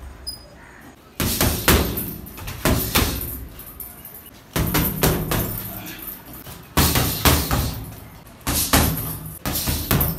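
Gloved punches landing on a hanging heavy bag, in quick combinations of two or three blows with short pauses between them.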